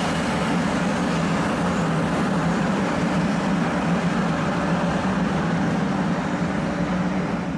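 500 Series Shinkansen bullet train passing on the track beside the platform: a loud, steady rush of wheel and air noise with a low rumble, dropping away sharply at the end as the last car goes by.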